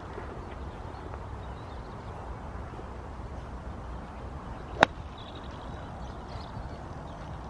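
A chipper striking a golf ball: one sharp click about five seconds in, over steady low background noise.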